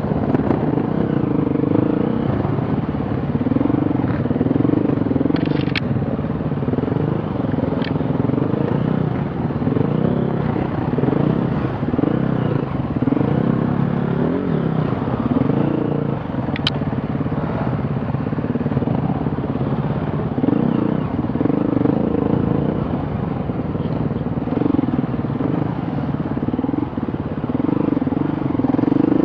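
Off-road vehicle engine running hard, its revs rising and falling over and over, with a few sharp clicks or knocks.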